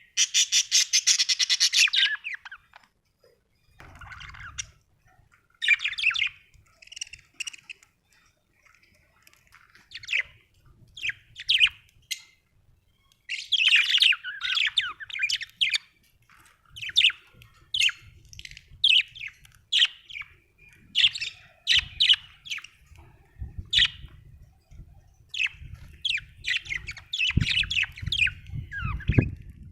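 Budgerigars chirping and chattering: a dense burst of warbling in the first couple of seconds, then a long run of short, quick chirps and calls with brief gaps between them.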